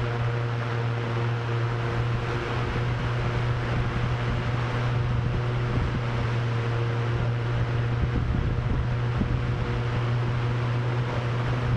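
Drone propellers spinning steadily, a constant low hum with a few fainter steady tones above it, mixed with a haze of wind noise.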